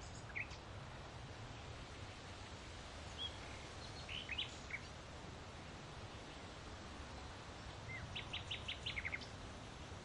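Faint outdoor ambience with small birds chirping over a steady low background noise: a few scattered short chirps, then a quick run of about eight notes near the end.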